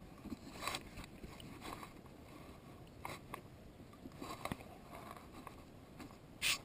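Scattered soft clicks and knocks from handling a spinning rod and reel on a plastic kayak, with one louder, sharper click near the end.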